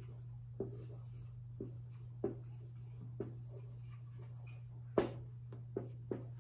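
Handwriting: short, separate scratching strokes about once a second, the loudest about five seconds in, over a steady low hum.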